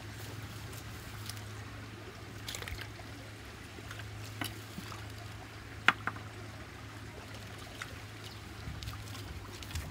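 Muddy floodwater trickling at a culvert inlet blocked with dead branches, with scattered light clicks and snaps from twigs being handled; the sharpest snap comes about six seconds in.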